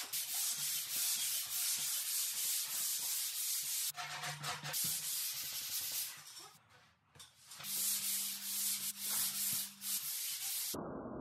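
Hand-sanding a surfboard's glassed fibreglass-and-resin surface with sandpaper on a pad, in repeated back-and-forth rasping strokes. The strokes pause briefly midway, and the sound turns duller near the end.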